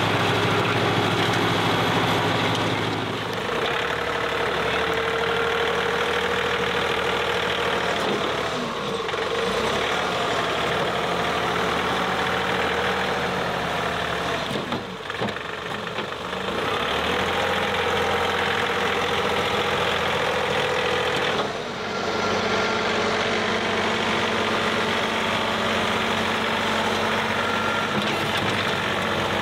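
John Deere compact tractor's diesel engine running steadily while the front loader works loose dirt. Its note changes about three seconds in, and it dips briefly twice, around the middle and about two-thirds through.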